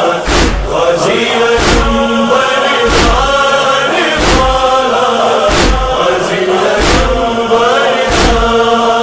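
Men's voices chanting a nauha, a Muharram lament, in long drawn-out notes. A large drum is struck in a slow, steady beat under them, one deep boom about every 1.3 seconds.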